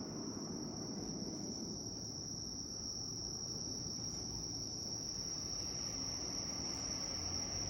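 A steady, high-pitched chorus of night insects that holds one pitch without a break, over a low background rumble.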